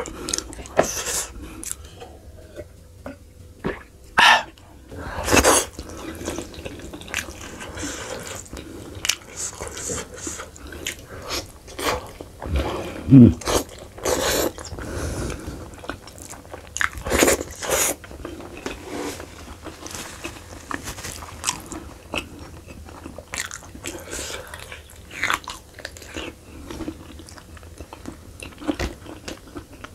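Close-miked chewing of sheep's-head meat: wet smacking and mouth sounds, broken by irregular louder bites and crunches every few seconds.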